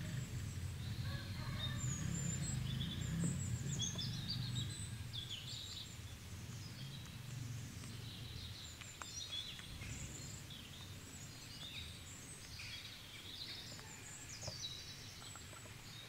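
Small birds chirping and twittering, many short high calls, over a low steady rumble of background noise that slowly fades.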